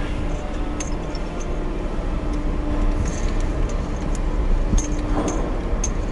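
Low steady rumble heard from inside a car creeping across a ferry's enclosed car deck, with scattered light clicks and clinks.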